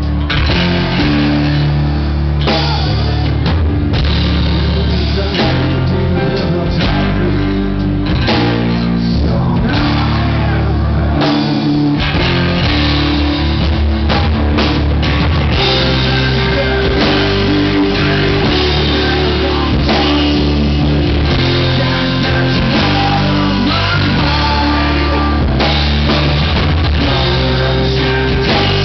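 Live blues-rock band playing loudly, with electric guitar and drum kit.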